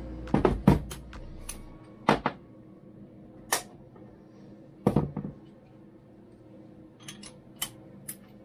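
Steel hand tools clinking and knocking as a 21 mm socket on an extension bar is handled and fitted: a few sharp metallic knocks about half a second in, again at about two, three and a half and five seconds, then a few lighter clicks near the end.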